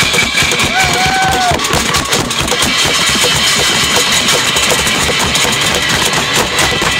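Many people banging pots, pans and a plastic bucket with sticks in one continuous loud, irregular din: the noise-making of an orchard wassail.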